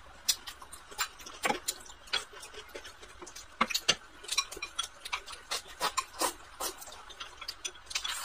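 Close-up eating sounds: chewing and mouth clicks, with chopsticks tapping against a glass rice bowl, as a run of short, irregular clicks.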